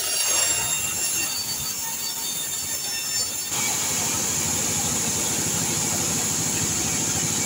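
Sawmill band saw running with its blade in kecapi (santol) wood, giving a metallic squeal with several high tones at first. About three and a half seconds in, this settles into a steady high hiss.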